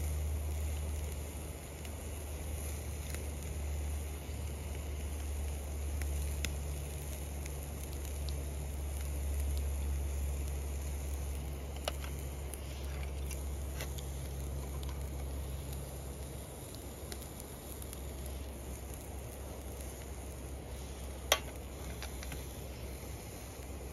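Wood fire crackling, with scattered small pops over a steady low rumble, and one sharper click near the end.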